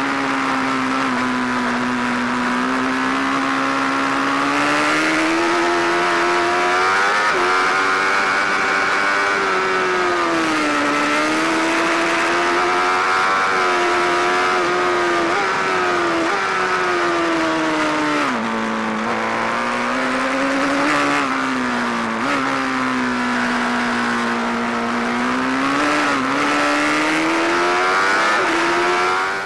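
BMW sport motorcycle's engine at track speed, heard from on board: revs climbing through the gears, then dropping several times on downshifts and braking for corners, over steady wind noise.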